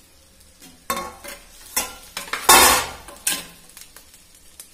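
Stirring and scraping fried rice in a clay pot: several short scrapes, the loudest a longer one a little past halfway, over a light frying sizzle.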